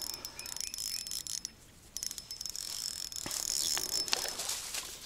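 Spinning reel being cranked to bring in a hooked trout: a fast run of mechanical clicking and whirring that stops briefly about a second and a half in, then resumes.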